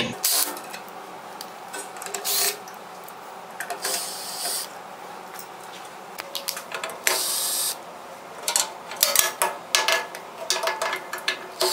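Cordless drill-driver running in short bursts, backing out the screws that hold a band saw's blade guard, followed by a run of clicks and knocks as the loosened metal guard and parts are handled.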